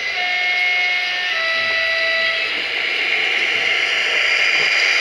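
Two-tone horn of an H0-scale DSB diesel locomotive model's sound system: a higher note for about a second, then a slightly lower note for about a second. After it a steady rushing running noise grows louder as the train comes near.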